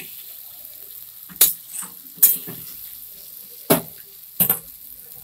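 Spiced masala and fried potatoes sizzling in a metal kadai as they are sautéed, with a spatula knocking and scraping against the pan four times.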